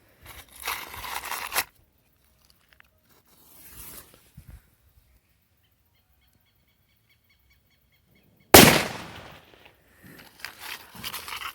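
A single firecracker going off about eight and a half seconds in: one sharp bang with a short trailing echo. Before it there is a short spell of rustling noise.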